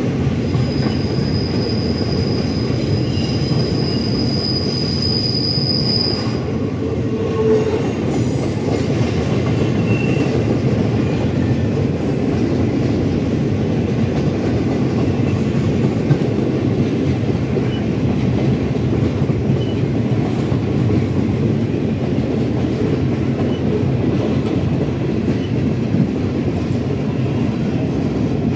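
Empty RJ Corman bulkhead flatcars of a freight train rolling past, a steady noise of wheels running on the rails. A high, steady wheel squeal sounds over it for the first six seconds or so.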